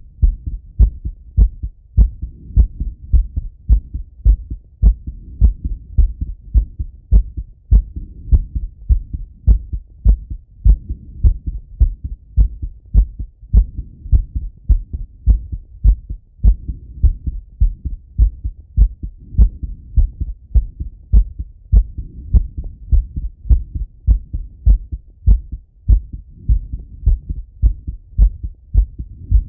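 A man's heartbeat heard through a Littmann stethoscope on the chest: steady, regular low thumps after a set of exercise.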